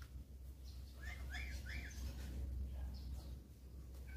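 A bird chirping, with a quick cluster of short up-and-down calls about a second and a half in and fainter calls later, over a steady low hum.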